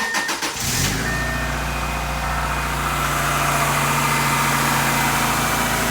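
1998 Subaru Legacy Outback's 2.5-litre EJ25 flat-four boxer engine started: the starter cranks briefly, the engine catches within about a second, then idles steadily on freshly replaced spark plugs.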